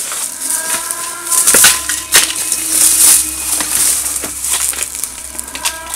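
Footsteps crunching through dry undergrowth and debris, with irregular snaps and rustles.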